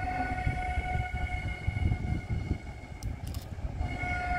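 Railway vehicle E4MSUa-009 running light, giving a steady high tone with overtones over an uneven low rumble. The tone weakens about two seconds in and returns strongly near the end, and a few brief clicks sound a little after three seconds.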